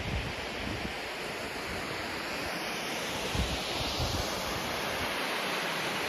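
Steady rush of a waterfall, with wind buffeting the microphone in low gusts; the hiss of the falling water grows a little brighter in the second half.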